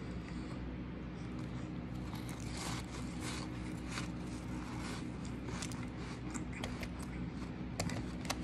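Biting into and chewing a mouthful of shaved ice: an irregular run of crisp crunches, with two sharper cracks near the end.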